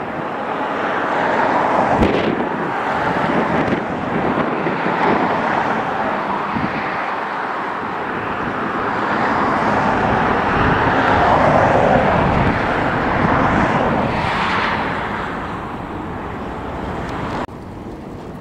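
Jet airliner engine noise mixed with wind buffeting the microphone, a loud rushing that swells and eases, then drops off suddenly near the end.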